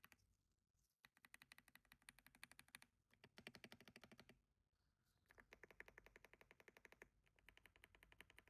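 Keys of a Leobog AMG65 gasket-mount mechanical keyboard being typed rapidly in several quick bursts with short pauses: a faint, fast clatter of key presses.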